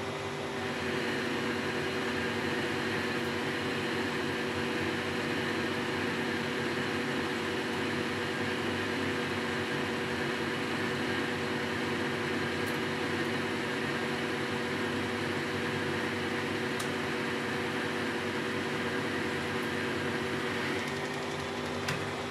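1972 Weiler Matador SV lathe running steadily under power feed, turning a roughing cut of 2 mm off the workpiece's diameter with a steady mechanical hum; a small click sounds near the end.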